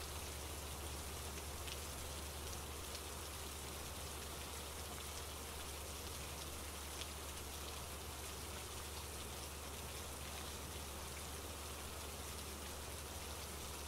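Steady, soft rain, with faint scattered drop ticks over a low steady rumble.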